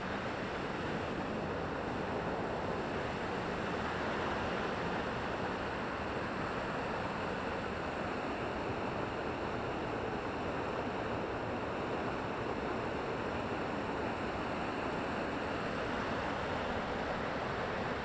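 Waterfall running full, a steady rush of falling water with no breaks.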